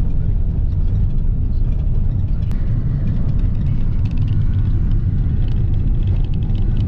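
Car cabin noise while driving on a gravel road: a loud, steady low rumble of engine and tyres.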